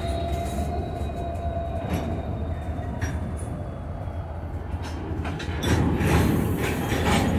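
Freight train of covered hopper cars rolling slowly past on the rails, shoved by Norfolk Southern diesel locomotives, with a steady low rumble and scattered wheel clicks. A thin wheel squeal fades in the first couple of seconds, and the rolling noise grows louder about two-thirds of the way through as the locomotives draw near.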